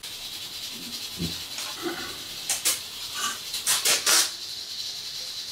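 Handling noise: a few loud, short rustles and crinkles about two and a half to four seconds in, over a steady hiss, as the new washbasin drain parts are handled.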